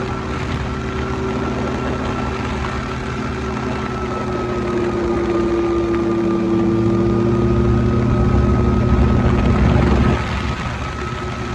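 CGS Hawk ultralight's engine and propeller running steadily. The pitch sags a little around the middle, and the sound dips briefly near the end.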